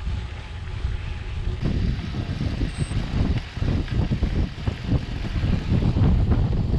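Wind buffeting the microphone of a camera on a moving bicycle: a loud, gusty low rumble.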